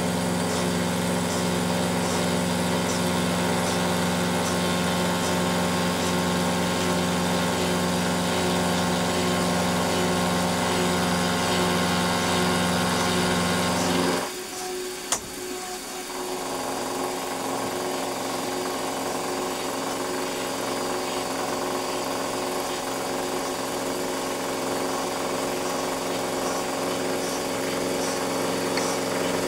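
Milling machine spindle running steadily while an end mill cuts a chamfer along the edge of a metal block. About halfway through the sound drops off abruptly, a single sharp click follows, and the machine then runs on more quietly.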